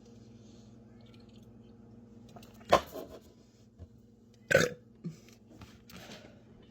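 A woman burping twice, two loud, short burps about two seconds apart.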